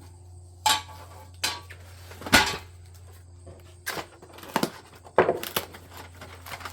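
Metal smoker parts and hardware clanking and knocking as they are handled and lifted out of their packaging box: about six separate sharp knocks, the loudest about two and a half seconds in.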